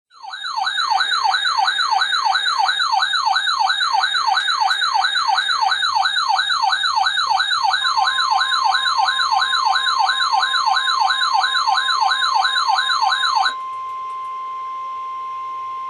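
A RadioShack weather radio's electronic alarm siren warbling rapidly, about three sweeps a second, set off by the NOAA Weather Radio Required Weekly Test; the uploader hears it as the 12-519's siren. About eight seconds in, the steady 1050 Hz NOAA warning alarm tone joins, and it carries on alone after the siren cuts off a couple of seconds before the end.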